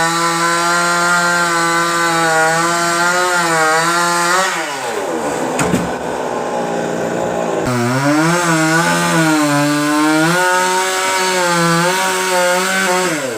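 Chainsaw cutting into a coconut tree trunk. It runs at high revs, then drops back about four and a half seconds in. Some three seconds later it revs up again, its pitch wavering under load, and it drops back near the end.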